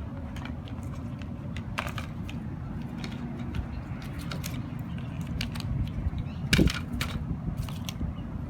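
Unboxing handling of the AirPods box and its contents: scattered light clicks and rustles over a steady low hum, with one louder knock about six and a half seconds in.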